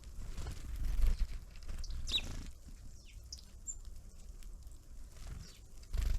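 Small birds giving a few short, high chirps and calls at a feeder, over scattered low knocks and thumps, loudest about a second in and near the end.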